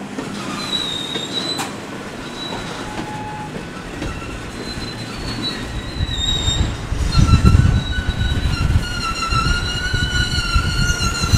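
Steel wheels of a centerbeam flatcar squealing as the car rolls over the yard track, over a low rumble that swells about halfway through. Near the end the squeal becomes a steady, several-toned screech.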